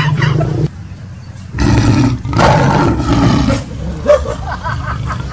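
Tiger roar sound effect dubbed over the prank: a long low roar begins after a short lull about a second and a half in, and a second roar follows near the end.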